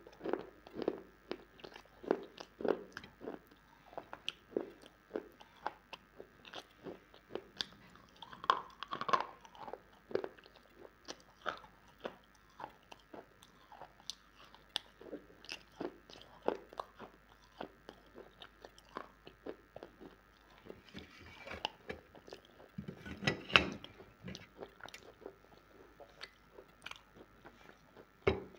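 Close-up biting and chewing of dry white clay slabs (multani mitti, fuller's earth): a run of short, crisp crunches several times a second, with a louder cluster about three-quarters of the way through.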